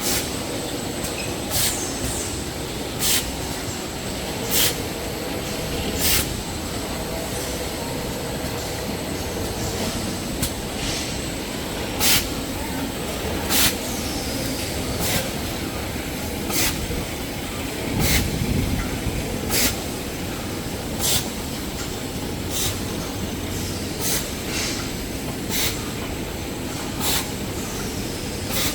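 Toilet paper and kitchen towel production line running, a steady mechanical hum with a sharp click repeating evenly about every one and a half seconds as the machine cycles.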